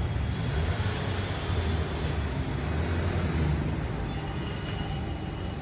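Maruti Suzuki Baleno's engine running with a steady low rumble as the car creeps slowly forward.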